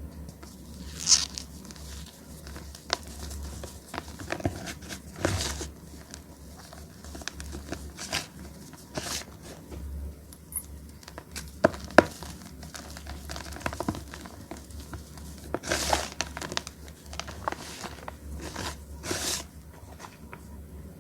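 Soft reformed gym-chalk blocks topped with cornflour being crushed by hand: irregular crunching and crumbling with scattered sharper crackles, a few standing out louder about a second in, around the middle and near the end.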